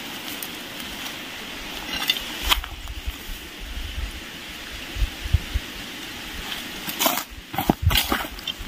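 Footsteps and rustling through dry weeds and brush, with low thuds in the middle. Near the end come a few sharp cracks as a brush knife chops at the undergrowth.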